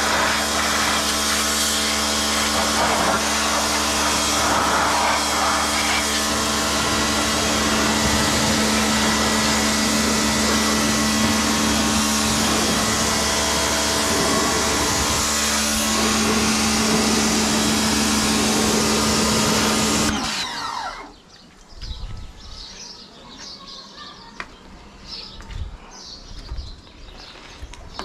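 Ingco 1400W electric pressure washer running, its motor humming steadily under the hiss of the water jet spraying a car wheel. It cuts off abruptly about twenty seconds in, leaving only faint clicks and handling noises.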